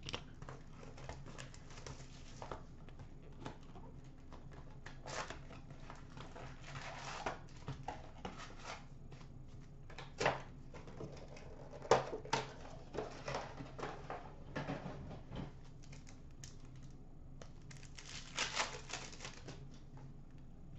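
Hockey card packs being torn open and the cards handled: wrappers crinkling and tearing and cards shuffling, in short scattered rustles and snaps, the sharpest about twelve seconds in and a longer crinkling spell near the end.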